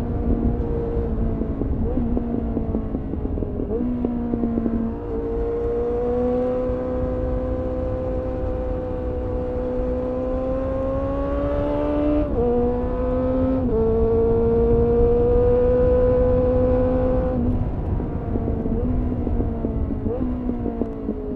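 Suzuki GSF 600 Bandit's inline-four engine through a GPR Furore Nero aftermarket exhaust, pulling hard and holding high revs, its pitch rising under throttle and dropping in steps at gear changes and corner entries, with wind rumble on the microphone.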